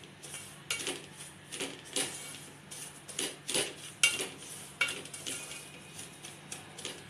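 Wooden spoon stirring semolina in ghee in a metal pot, scraping and knocking against the pot in irregular strokes, a few a second, as the semolina is roasted over low heat.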